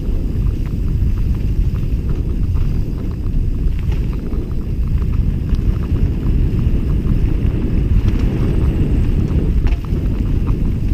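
Mountain bike descending a rough dirt trail, heard from a helmet-mounted camera: a steady rumble of wind on the microphone and tyres on dirt, with frequent small clicks and rattles from the bike and loose stones.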